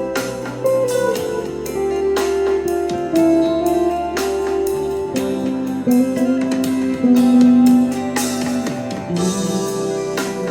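Guitar music from a jam, with long held notes that slide and bend in pitch over a steady beat of about two strokes a second.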